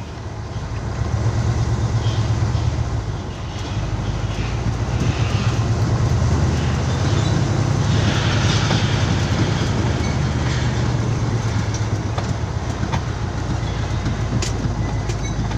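Truck engine running low and steady with a constant rattle as the truck rolls slowly over a rough gravel road, heard from inside the cab.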